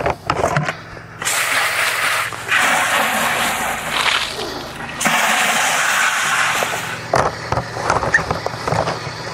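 Garden hose spray nozzle rinsing out a plastic fermenting bucket: water rushes into the bucket and is tipped out onto the grass for about six seconds, starting about a second in. Plastic clicks and knocks from handling the bucket come before and after.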